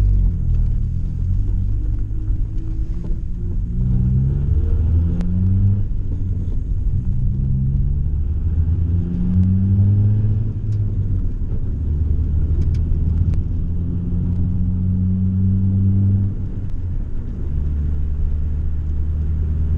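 Interior sound of a 1990 Honda Civic's D16 four-cylinder engine and exhaust, running through the muffler only with no resonator, pulling away and climbing through the gears: a deep, bassy note rises in pitch several times, dropping back at each shift, then settles to a steady cruise with a slight drone. A few light ticks of rattles and squeaks from the old car come through.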